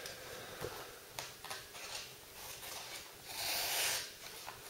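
Paper rustling as it is handled, then a sharpness test: the Ganzo G301 B multitool's main blade slicing through a sheet of paper, a short hiss of under a second about three and a half seconds in. The edge cuts paper, though not especially keenly.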